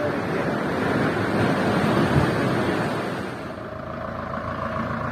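A motor vehicle passing by, its noise swelling and then fading, followed by a steady engine hum from about three and a half seconds in.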